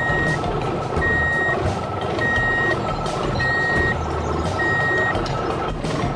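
Heavy construction vehicle's reversing alarm beeping steadily, five single-pitch beeps of about half a second each, spaced a little over a second apart and stopping near the end, over the rumble of its engine.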